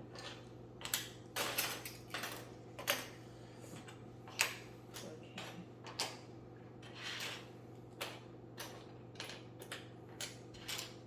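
Plastic Lego pieces clicking and clattering as they are handled and pressed together, in irregular sharp clicks over a low steady hum.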